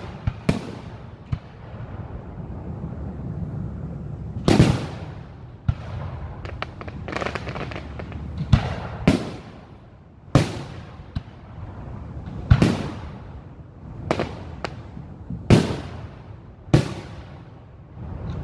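Aerial firework shells bursting: about ten sharp booms at irregular intervals, each trailing off in a rolling echo.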